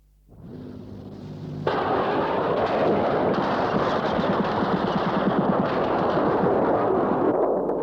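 Rapid, continuous anti-aircraft and machine-gun fire during an air raid, swelling to full loudness about a second and a half in.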